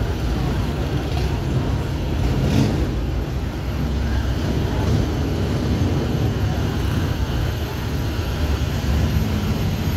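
Heavy semi-truck's diesel engine running as it pulls a loaded flatbed trailer slowly past, a steady low engine sound.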